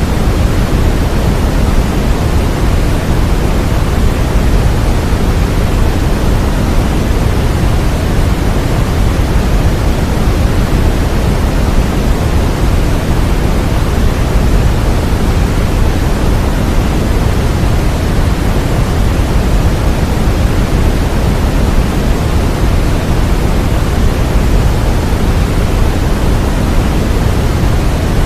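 Continuous generated white noise for baby sleep: an even, unchanging rush, deeper and heavier in the low end than a bright hiss, like pink noise.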